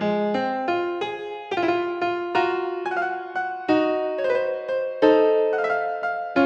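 Background music: a piano-like keyboard plays a melody of struck notes, a few each second, each ringing and fading before the next.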